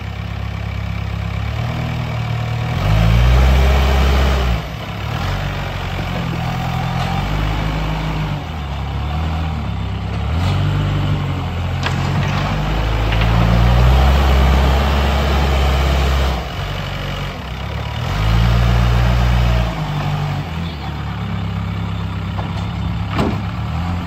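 Backhoe loader's diesel engine running under load, revving up and settling back several times as the front bucket digs into and lifts a pile of soil.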